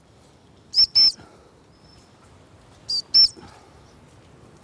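A gundog whistle blown in two pairs of short, high pips, one pair about a second in and another about three seconds in, the handler signalling a working gundog in cover.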